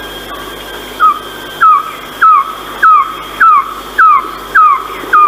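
Philippine trogon calling: a steady series of eight short, falling notes, nearly two a second, starting about a second in, over a faint steady high tone.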